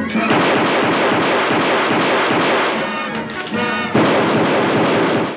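Cartoon soundtrack: a loud, continuous noisy din mixed with orchestral music, cutting off suddenly after about five seconds.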